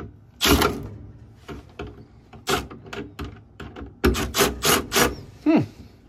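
Hand work on a gas furnace's inducer assembly: separate sharp knocks and scrapes of parts being handled, with a quick run of several knocks about four seconds in. A short squeak falls in pitch near the end.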